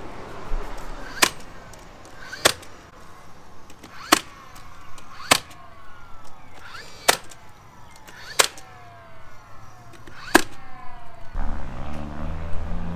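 DeWalt cordless nailer driving nails into wooden porch skirt boards: seven sharp shots, one to two seconds apart, several of them followed by a short falling whine.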